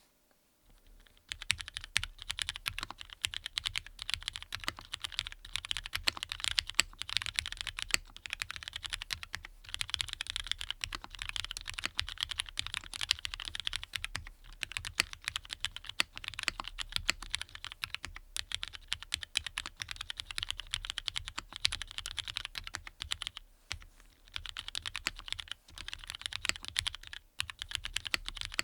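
Continuous fast typing on a mechanical keyboard with lubed Cherry MX Black linear switches in an aluminium plate, giving dense, rapid key clacks. The typing starts about a second in and pauses briefly a few times.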